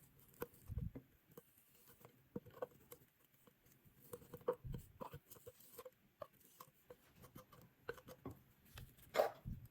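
Spoon scraping and tapping inside tins of wet cat food, digging the last bits out of the corners: a scatter of faint small clicks and scrapes, a little louder near the end.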